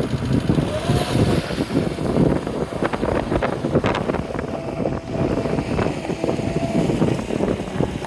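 Cat 242D skid steer running, its diesel engine rumbling unevenly with a steady whine that comes and goes, and several sharp clanks about three to four seconds in.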